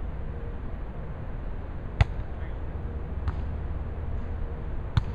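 A volleyball being struck by hands during a rally: a sharp smack about two seconds in, a softer hit a little over a second later, and another sharp one near the end. A steady low rumble runs underneath.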